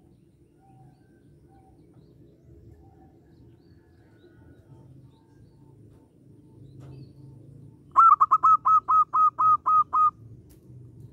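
Zebra dove (perkutut) giving a fast run of about ten sharp, clipped notes over about two seconds near the end, after a few faint short calls, over a low steady background rumble.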